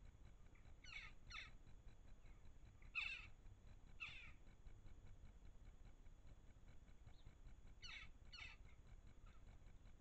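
Crow-family birds giving short, harsh calls, six in all in three pairs: two about a second in, two around three to four seconds in, and two near the end.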